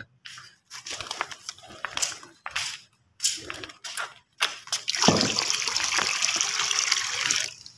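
A run of short scrapes and taps, then water poured out in a steady gush for about two and a half seconds, stopping suddenly.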